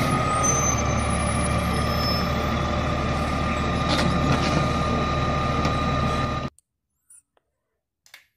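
Rear-loading garbage truck running at the curb, a steady diesel engine hum with a steady high whine over it and a few light knocks about four seconds in as bins are handled. The sound cuts off suddenly about six and a half seconds in, leaving near silence with a faint click or two.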